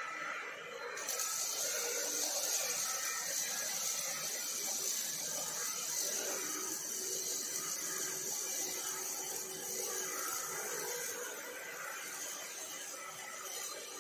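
OTC robotic welding arm's welding arc striking about a second in, then burning steadily with a sizzling, crackling hiss as it lays a bead along a steel frame joint.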